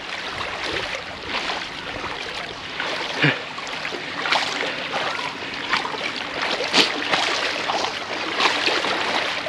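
Shallow sea water swishing and sloshing as a shrimp push net is pushed through it by a wader, with a couple of brief louder splashes.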